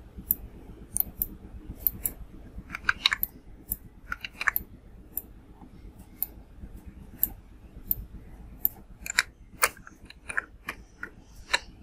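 Irregular clicks of a computer mouse and keyboard, sharp single ticks and some quick pairs, over a faint low background hum.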